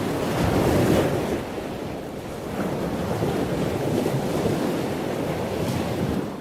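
Ocean surf: a continuous rushing wash of waves that swells and ebbs, loudest about a second in, and begins to fade out at the very end.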